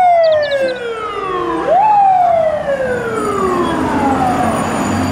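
Fire truck siren wailing: a falling tone that drops for about two seconds, rises sharply again just under two seconds in, then winds slowly down for nearly three seconds.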